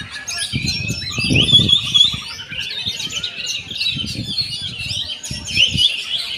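Oriental magpie-robin (kacer) singing continuously in a fast, varied stream of chirps, trills and whistles. A low, muffled sound comes and goes underneath.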